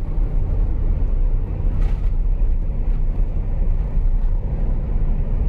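Steady low rumble of a car driving at motorway speed, with engine, tyre and road noise heard from inside the cabin.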